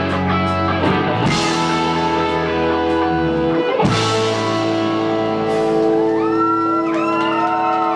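Rock band playing an instrumental passage: guitars holding sustained chords, with cymbal crashes about a second in and again near four seconds, and sliding guitar notes in the last couple of seconds.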